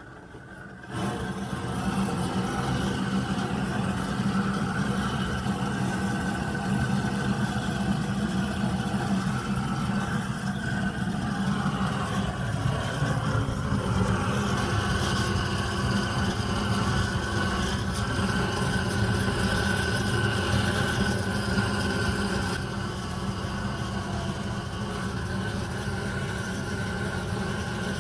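Long-wand propane torch burning steadily as its flame is played onto charcoal briquettes in a smoker firebox to light them. It lights about a second in and runs at a steady level, dropping a little about three-quarters of the way through.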